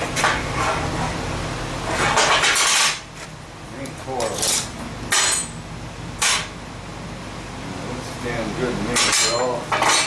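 Lengths of bent square steel bar being handled on a steel workbench: a handful of sharp metal-on-metal clanks and knocks, with a longer scraping clatter about two seconds in.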